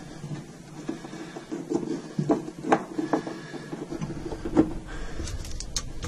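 Hand screwdriver working a screw at the stove lid's rear hinge fixing, with scattered small clicks and taps of metal and tool handling.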